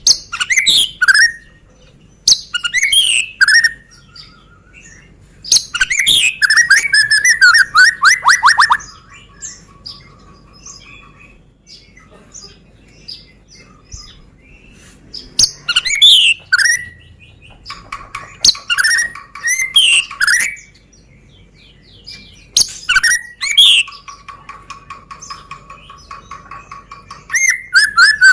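White-rumped shama (Medan murai batu) singing loud whistled phrases in bursts with short pauses between them. Several phrases end in fast rattling runs of notes, and a steady held whistle sits under some of them.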